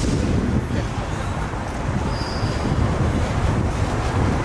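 Disneyland parking tram running along the road, heard from on board: a steady low rumble of the tram and its tyres.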